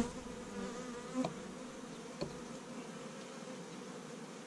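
Carniolan honey bees buzzing around an opened hive, a steady hum, with a couple of light knocks about one and two seconds in.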